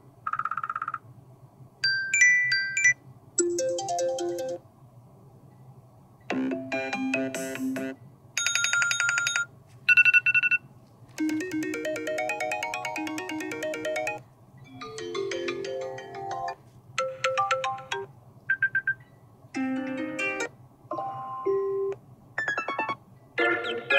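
A string of iPad Air 5 ringtone previews, over a dozen different short electronic melodies and chimes, each cut off after a second or two before the next begins. A faint low hum runs underneath.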